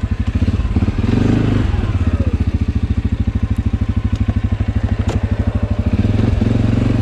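ATV engine running at low revs with a steady, even pulse; the revs rise briefly about a second in and again near the end.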